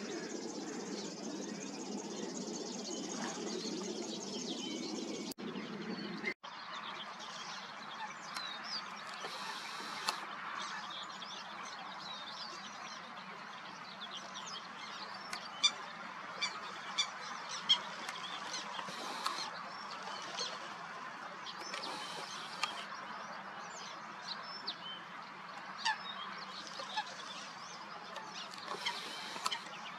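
Waterbirds calling: many short honking calls mixed with sharper cries, the loudest sharp calls standing out in the second half. For the first few seconds a steadier low rushing sound underlies the calls, then breaks off abruptly.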